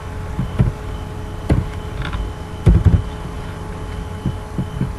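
A few scattered clicks and soft knocks from a computer keyboard and mouse, over a steady background hum with a faint high tone.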